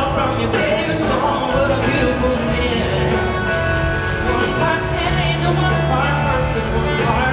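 Live band playing a country-pop song in an arena: male lead vocals over strummed acoustic guitar and a steady drumbeat, recorded from the audience.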